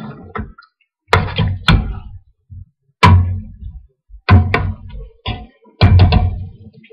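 A series of loud, irregular knocks and thuds from cookware and kitchen utensils being handled, about eight in all, some in quick pairs, each with a short ring.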